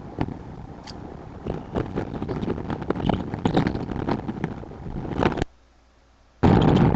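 Wind buffeting an outdoor nest-camera microphone, with scratchy rustling and sharp clicks from the nest. About five and a half seconds in the sound cuts out to near silence for about a second, then returns abruptly and louder.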